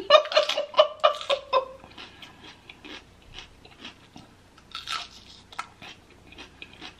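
Close-up eating sounds: biting and chewing food, with wet mouth clicks and smacks scattered throughout. A brief vocal sound from the eater in the first second and a half.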